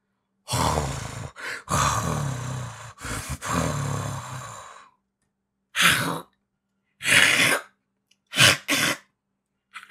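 A voice actor's wordless cat-monster vocalisation: a long, rough growling sound lasting about four seconds, then four short breathy, hiss-like bursts with silences between them.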